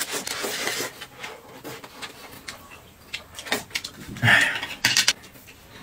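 Noodles slurped up through the lips for about the first second, then scattered light clicks and knocks of chopsticks and dishes on the table. About four seconds in comes a short, louder noise.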